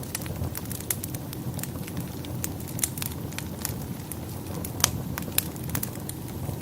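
Wood fire in a fireplace crackling, with many irregular sharp pops and ticks over a steady low rumble of the flames. One pop stands out louder about three quarters of the way through.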